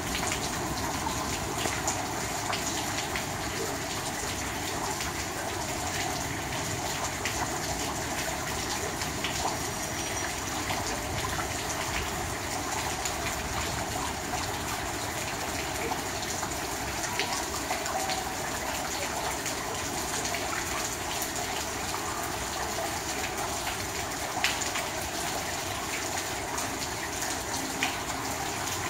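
Rain falling on puddled ground, a steady splashing hiss of drops on water with many small drip ticks, one of them sharper about three-quarters of the way through.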